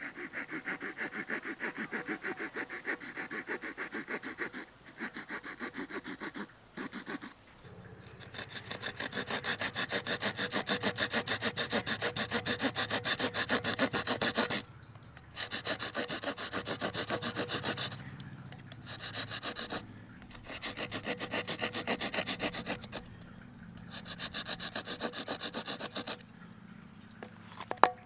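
Bow drill in use: a wooden spindle spun back and forth by a bow, grinding in a charred hole in a wooden fireboard, its top turning in a ball bearing set into a Swiss Army knife. A quick, even rasping that comes in several runs with short pauses between them, and a sharp click near the end.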